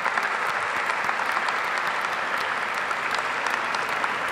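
An audience applauding at a steady level, many hands clapping together.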